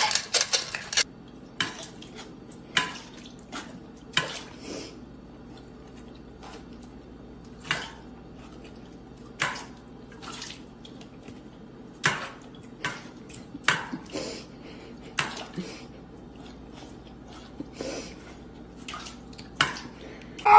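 A dog dipping its muzzle into water in a stainless steel bowl: irregular splashes and clinks against the metal, roughly one every second or so. A quick run of clicks in the first second comes from a puppy at a plastic food bowl.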